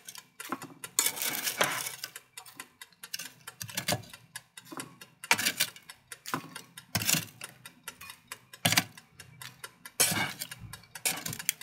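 Tongs clicking and tapping against the perforated metal basket of an air fryer while picking up sweet potato fries: irregular sharp clicks, a few of them louder.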